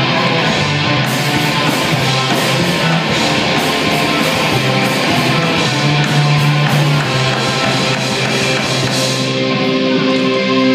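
Live rock band playing loud distorted electric guitars, bass and drums. About nine seconds in the drums drop out and the guitars hold a ringing chord.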